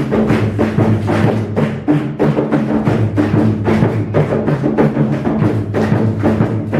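Traditional drums beating a fast, steady dance rhythm, about four strokes a second.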